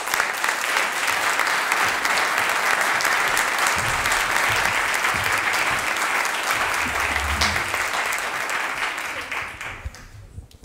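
Audience applauding: steady clapping that tapers off and fades out near the end.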